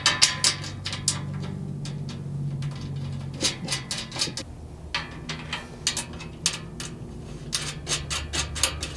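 Small metallic clicks and taps, irregular and quick, of quarter-inch button head bolts and serrated flange nuts being dropped into the cargo basket's mounting slots and started by hand, over a faint low hum.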